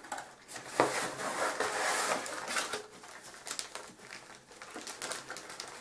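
Wrapping paper and packing material crinkling and rustling as items are lifted out of a cardboard gift box. The rustling is loudest from about a second in to two and a half seconds, then turns to fainter rustles and light taps.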